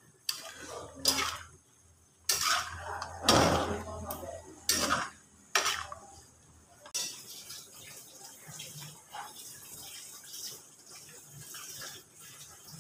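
Metal slotted spatula scraping and clattering against a stainless steel pan while stirring thick beef rendang, several strokes in the first six seconds, then only a quieter steady hiss.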